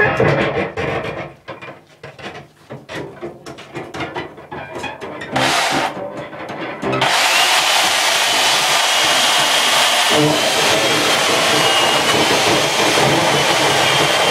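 A Stihl chainsaw dies away; for a few seconds there are only sparse scrapes, clicks and bowed cello sounds, with a short loud blast about five seconds in. About seven seconds in, the chainsaw comes back and runs steadily, cutting into a wooden beam.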